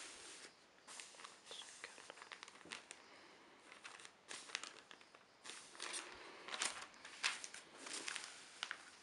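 Newsprint rustling and crinkling as a newspaper and its advertising insert are handled, folded and slid across a bed cover, in a string of short crisp rustles and crackles that come thicker in the second half.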